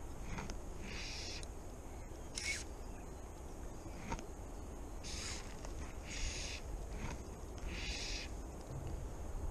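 Fly line being stripped in by hand during a retrieve: a short hiss as the line slides through the fingers and rod guides with each pull, about five pulls at uneven intervals.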